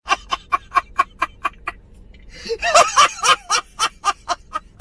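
A man laughing loudly in rapid staccato bursts, about six a second, with a denser, louder run of laughter about halfway through.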